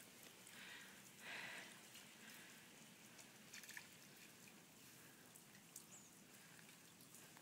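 Faint small splashes of a toddler's hand dabbling in a shallow, slushy puddle, over near silence: two soft ones about a second in and a few light ticks a little past the middle.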